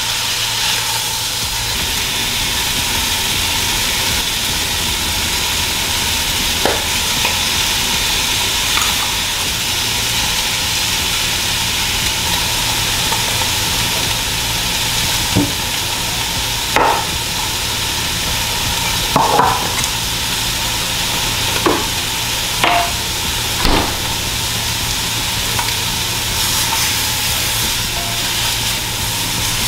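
Chicken searing in olive oil in a pan, a steady sizzle, with a handful of short clinks and scrapes against the pan in the middle stretch.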